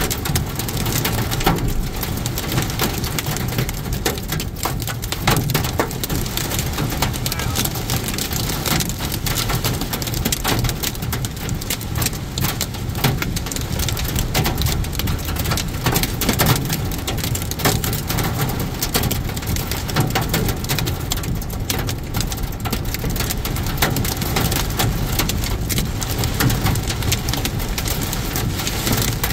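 Heavy rain pelting the windshield and roof of a moving car, a dense patter with many sharp taps, over the car's steady low road noise.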